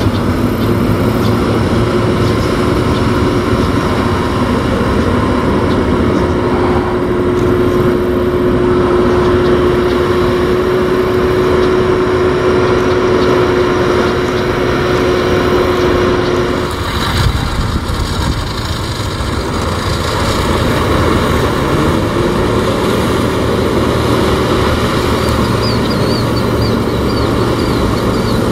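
New Holland T4.110 tractor's four-cylinder diesel engine running steadily as it drives through pond water on wide flotation tyres, the tyres churning and splashing the water. The steady engine note breaks off briefly about two-thirds of the way through.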